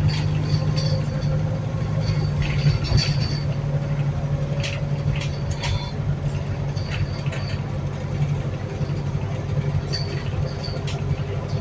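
Wright New Routemaster hybrid bus heard from inside while under way: a steady low drivetrain drone with a thin high whistle over it and scattered clicks and rattles throughout.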